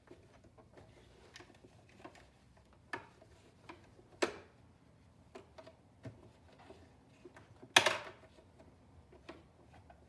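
Cloth wiping the white plastic housing of a Janome 2212 sewing machine, with scattered light taps and knocks as the hand and rag bump the body. Two louder knocks stand out, about four seconds in and near eight seconds, the second followed by a brief rubbing scuff.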